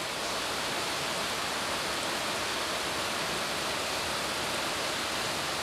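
Steady, even hiss of background noise at a constant level, with no other sound.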